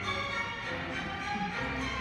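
Orchestral music with a violin lead, a skater's program music played over the arena's sound system.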